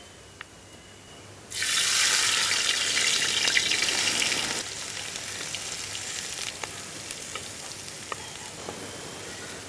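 Chopped onions dropped into a hot wide metal pan, setting off a sudden loud sizzle about a second and a half in. After about three seconds the sizzle settles to a quieter, steady frying hiss, with a few light clicks of a spoon scraping the plate.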